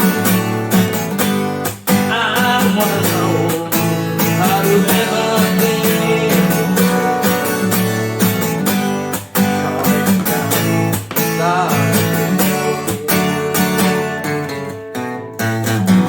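Acoustic guitar strummed in a steady rhythm, with a voice singing in places, near the close of the song; a brief pause near the end comes before a final strum.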